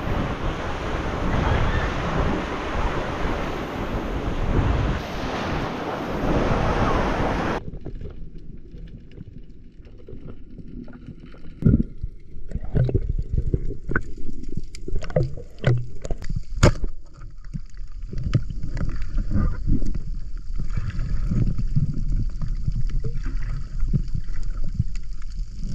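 Wind and surf on a beach, then about a third of the way in a sudden change to muffled underwater sound with scattered clicks and knocks.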